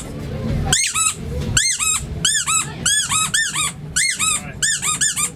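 A rubber squeeze toy squeaking over and over in quick runs of three to five squeaks, each squeak rising and falling in pitch.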